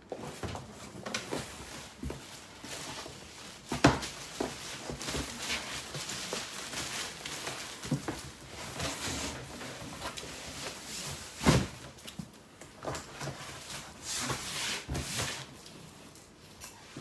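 Plastic wrapping and cardboard boxes rustling and scraping as they are handled, with two sharp knocks, about four seconds in and again a little past the middle.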